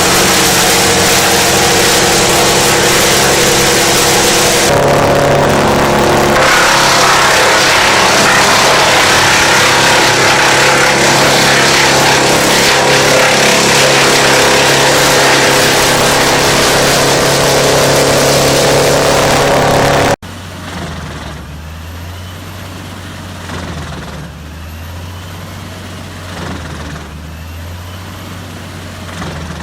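Wood chipper running loud under load, a dense mechanical noise over the steady drone of its engine. About 20 seconds in it cuts off abruptly to a much quieter, steady low engine hum.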